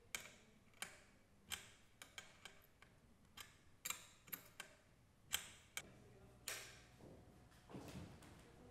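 A string of faint, irregular metallic clicks as a spanner and Allen key work the nut on a children's trike's steering stem bolt, fastening it.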